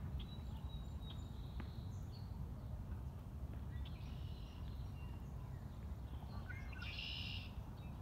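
Wild songbirds singing: thin high whistled notes in the first second or two, scattered calls in the middle, and one loud buzzy song near the end, over a steady low rumble of background noise.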